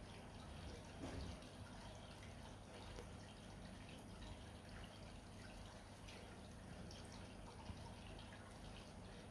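Near silence: faint room tone with a few soft ticks, one slightly louder about a second in.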